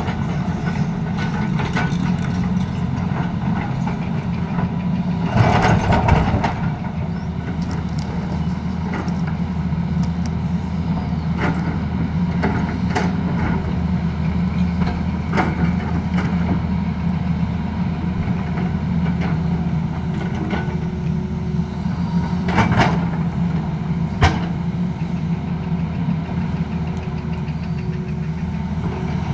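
Tata Hitachi crawler excavator's diesel engine running steadily while it digs, with scattered metallic clanks and knocks of the bucket and tracks against rock and soil. A louder burst of scraping and rattling comes about six seconds in.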